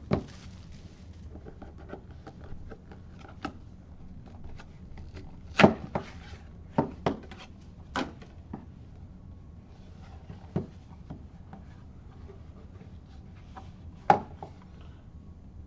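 A white cardboard Panini Luminaries card box being handled and opened: scattered knocks, taps and rubbing as the lid is worked off and the foam-padded card case inside is lifted out, with a cluster of sharper knocks around the middle and one loud knock near the end.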